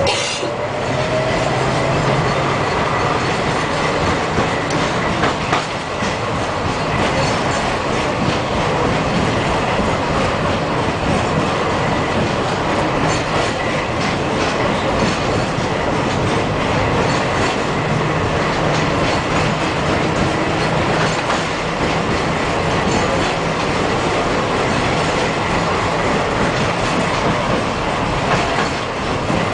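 Tram running along the track, heard from inside the car: a steady rumble of steel wheels on the rails, with a few sharp clicks over the rail joints.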